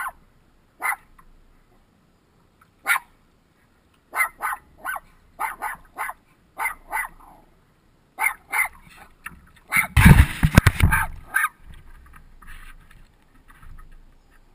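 Small dog barking in short, sharp yips, about a dozen spread over several seconds, then a loud rough rumbling clatter lasting about a second and a half about two-thirds of the way through.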